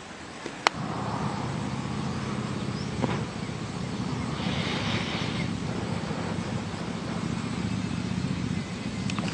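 Two small 1 kW wind turbines running, their blades and generators giving a steady low whirring hum, after a sharp click just under a second in.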